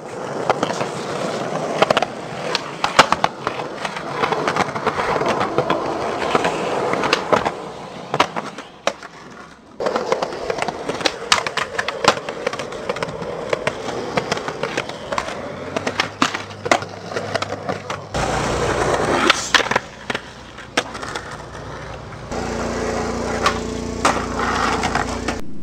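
Street skateboarding on concrete: wheels rolling, with many sharp clacks of the board popping and landing and scraping grinds on ledges. A steady low hum comes in for the last several seconds.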